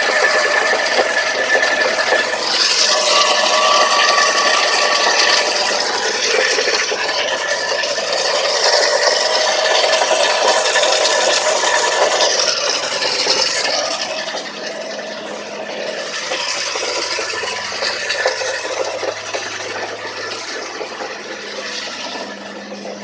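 Hyundai Sonata engine running with a fast, continuous rattling knock, the fault that the owner is asking about. It eases off a little about two-thirds of the way through.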